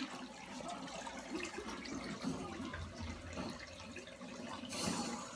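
Muffled fighting-video-game sounds playing in the background, a jumble of faint hits and effects with a short hissing burst near the end.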